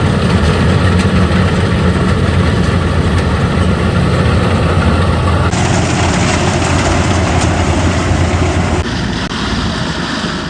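Kubota 105X rice combine harvester running steadily, a loud deep engine hum with machinery noise. The sound changes abruptly about halfway through and again near the end.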